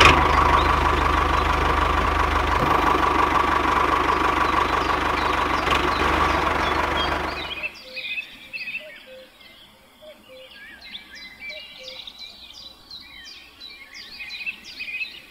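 Small engine of a miniature walking tractor running steadily, then cutting off suddenly about eight seconds in. After it stops, birds chirp.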